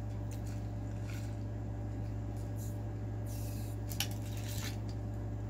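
Sipping a drink through a straw from a glass mason jar: faint slurps and small mouth clicks, with one sharp click about four seconds in, over a steady low hum.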